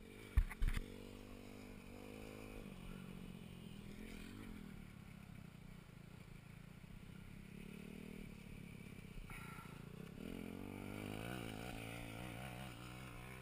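Dirt bike engines running, their pitch rising and falling with the throttle, with a couple of sharp thumps about half a second in.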